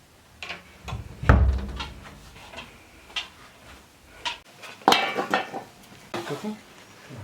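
Pots and dishes being handled: a string of knocks and clatters, the loudest a heavy knock with a deep thud about a second in, and a ringing clatter about five seconds in.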